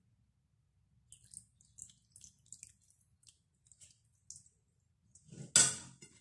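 Broth trickling and dripping from a ladle onto a mound of couscous in a run of small splashes. Near the end, one loud ringing clank, like the metal ladle knocking against the stainless-steel pot.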